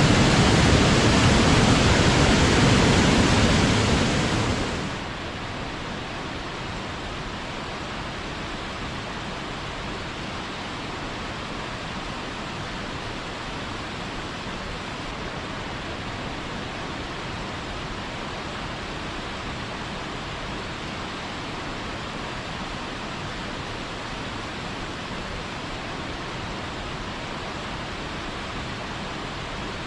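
Steady rush of falling water from a waterfall. It is loud for the first four or five seconds, then drops suddenly to a quieter, softer rush for the rest.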